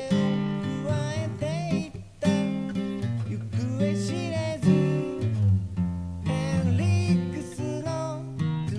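Background music: a strummed acoustic guitar song with a sung melody.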